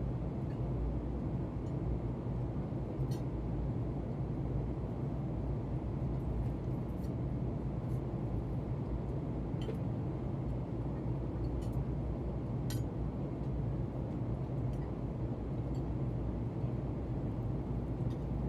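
Steady airliner cabin noise inside a Boeing 747-8i: a constant low rumble and hiss, with a few faint clinks scattered through it.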